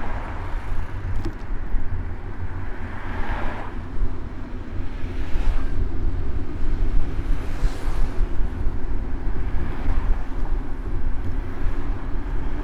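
City street traffic heard from a moving bicycle: vehicles pass with swelling then fading noise a few seconds in and again around eight seconds, over a steady low rumble from riding.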